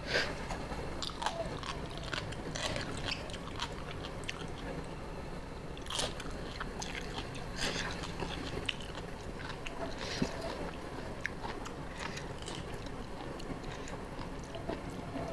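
A person chewing and biting a spicy seafood papaya salad close to the microphone: wet, crunchy mouth sounds with irregular small clicks and a few louder crunches.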